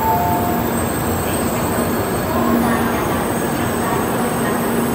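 N700-series Shinkansen train rolling slowly into the platform as it comes to a stop: a steady rumble with a low hum, and two brief higher tones near the start.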